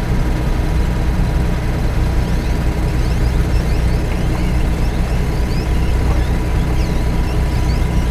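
Heavy equipment's diesel engine running steadily with an even low hum.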